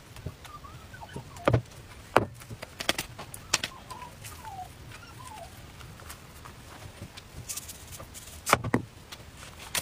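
Hands handling freshly cooked thin crepes and shredded scallions: a few sharp taps and knocks, the loudest about one and a half seconds in and again near the end, as the crepes are laid on and rolled against the wooden board, with faint short chirps in the background.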